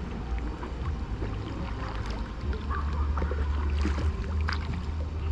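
Kayak paddles splashing in river water, over a steady low rumble, with a few sharper splashes about two seconds in and again later.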